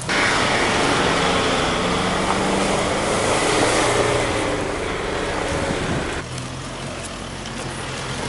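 Off-road 4x4 engines running under load while the vehicles drive through mud and climb a dirt slope. The sound changes abruptly about six seconds in, where one vehicle's engine gives way to another's.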